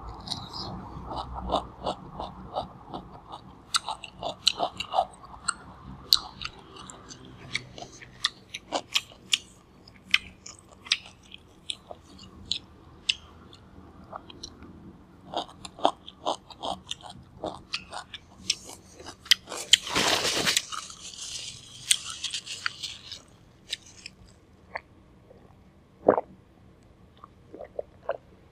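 Close-miked chewing of crispy pig skin, a string of sharp crunches and mouth clicks, several a second at times, with pauses between bites. About two-thirds of the way in there is one louder noisy burst lasting about a second, followed by a fainter hiss.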